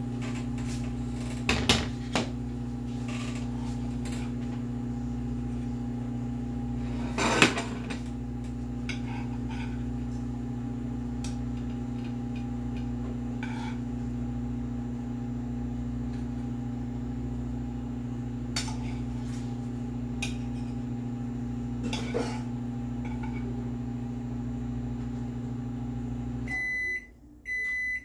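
A microwave oven running with a steady electrical hum while warming bread, with a spoon clinking and scraping as food is served from a nonstick pan onto a plate. About a second and a half before the end the hum cuts off and the microwave starts beeping to signal it is done.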